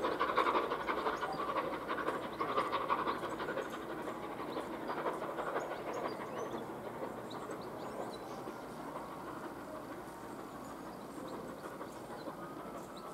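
Train of the steam locomotive Flying Scotsman with a diesel locomotive on the rear, running away along the line: a rumble with a rapid run of clicks from the wheels and some steam hiss. It fades steadily as the train recedes.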